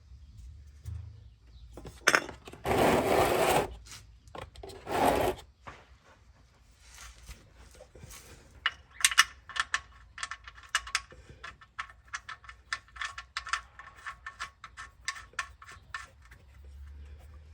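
A couple of scraping, shuffling noises early on, then a ratchet wrench clicking quickly for several seconds as a fastener under the truck is turned, most likely the oil drain plug being run back in.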